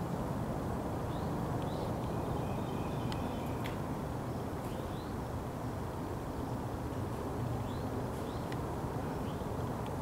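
Outdoor woodland ambience: a steady low rumble of background noise, with short rising bird chirps scattered through and a couple of faint clicks a few seconds in.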